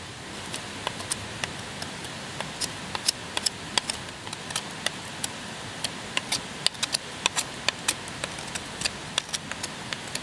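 Wood campfire crackling, with irregular sharp pops over a steady hiss.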